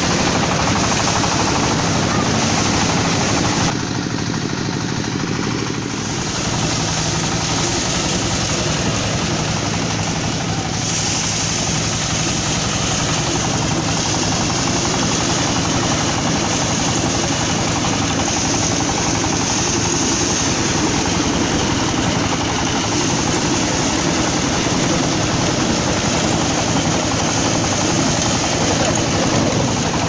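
Powered paddy threshing machine running steadily, its spiked drum beating the grain out of rice bundles fed in by hand: a loud, dense mechanical clatter over a low hum.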